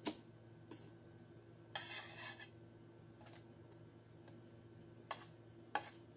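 Metal spatula tapping and scraping on a frying pan while turning flatbreads: a few sharp clicks and one longer scrape about two seconds in, over a low steady hum.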